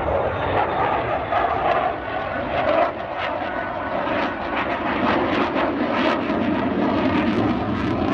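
Lockheed Martin F-35's single Pratt & Whitney F135 turbofan at high power on a display pass: a loud, continuous jet rumble with rapid crackling that grows denser in the second half as the jet pulls away on afterburner.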